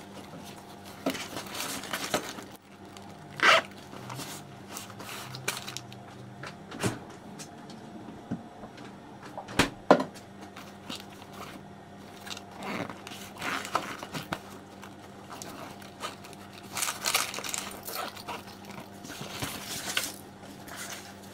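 Scattered rustling, scraping and a few sharp knocks as a fabric backpack and other things are handled, over a faint steady hum.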